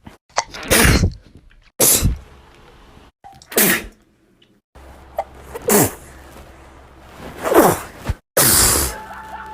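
A young woman sneezing repeatedly: about six loud sneezes in quick succession, several ending in a cry whose pitch drops.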